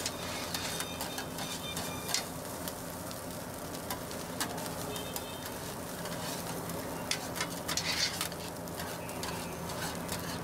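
Fried rice sizzling on a flat-top steel griddle, with metal spatulas scraping and clacking against the hot surface in irregular strokes as the rice is chopped and tossed.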